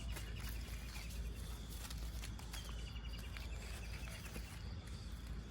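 An animal's rapid trilled call, heard twice, each a quick run of evenly spaced ticks at a high pitch lasting under a second, over steady outdoor ambience with a few light clicks.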